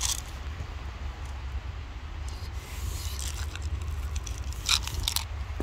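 Dry cat kibble tipped from a plastic cup rattling onto brick paving, with stray cats crunching it, a few short crisp rattles with the brightest near the end. Under it runs a steady low rumble.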